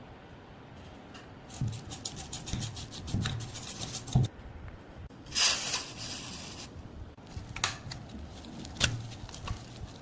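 Hand rubbing and scraping on rusted metal parts: a run of quick scratchy strokes, then one longer hissing stroke about halfway through, and a few light knocks near the end.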